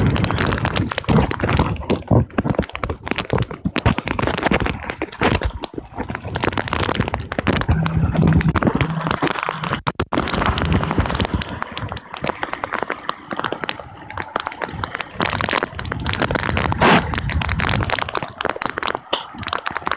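Hurricane wind and rain hitting a phone's microphone: continuous, irregular crackling and buffeting.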